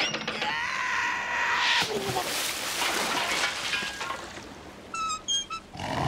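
Cartoon sound effects: a held high tone lasting about a second and a half, then a long noisy crashing stretch, then a few short high squeaks near the end.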